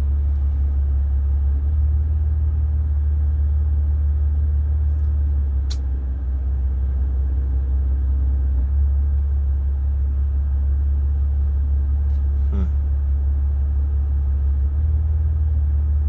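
A 2020 Maserati's engine idling in park, heard from inside the cabin as a steady low drone over a fan-like hiss. The drone steps up and down in level a few times, which fits the unsteady idle the owner describes as the RPM going up and down. There is a single sharp click about six seconds in.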